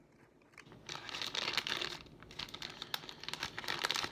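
Plastic bag of Big Bite Baits soft-plastic craws crinkling as it is handled, starting about a second in, with many small crackles.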